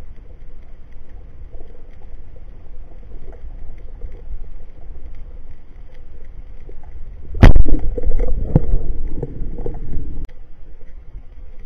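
Underwater ambience through a camera housing, a steady low rumble with faint clicks. About seven seconds in, a sharp loud crack as a speargun is fired, followed by a couple of seconds of rough rushing and rattling as the shaft and its line run out through the water.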